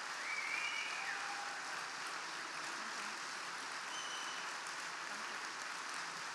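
Large audience clapping steadily in sustained applause, with a brief high cheer rising over it about half a second in.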